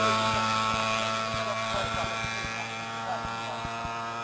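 A steady electrical buzz with many overtones, over faint distant voices and a scatter of irregular soft knocks from footsteps on the road.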